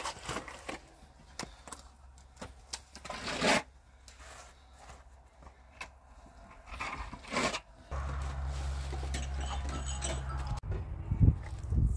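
A steel trowel scraping and spreading stone-powder plaster onto a concrete block wall in short, irregular strokes. About eight seconds in, a steady low rumble sets in, and a couple of knocks come near the end.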